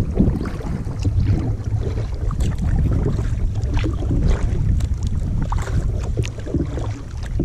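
Kayak paddling: paddle blades dipping and splashing with many small splashes and drips, over a steady low rumble of wind on the microphone.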